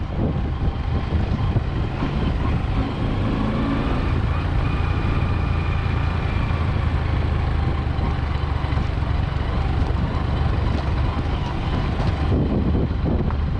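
Motor vehicle traffic on the highway: steady engine rumble and road noise as a vehicle passes close, with wind buffeting the microphone.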